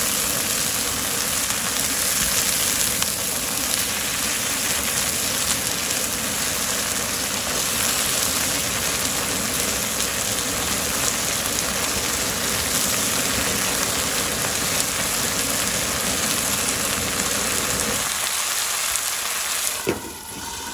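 Leafy greens sizzling steadily as they are stir-fried in a hot nonstick pan with a wooden spatula. Near the end a glass lid is set on the pan with one sharp clink, and the sizzle turns quieter and muffled.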